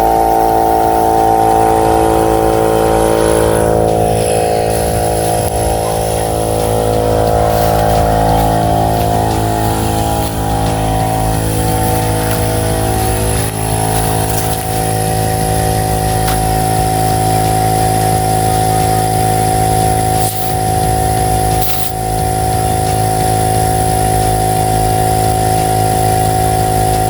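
Air compressor running steadily with a constant motor hum, pumping air into a flat boat-trailer tire.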